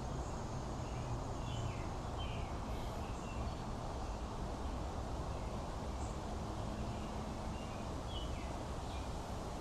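Steady background hiss and low hum with a few faint, short, downward-sliding bird chirps scattered through it.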